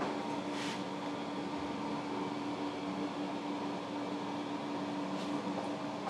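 Steady mechanical hum of a fan-driven machine running, with a constant low tone, heard in a small tiled room. A couple of faint soft knocks come through, about a second in and near the end.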